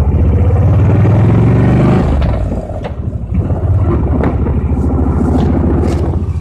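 Motorcycle engine running under way, its pitch climbing as it accelerates for about two seconds. It drops off briefly, then runs steadily again, with a few short knocks.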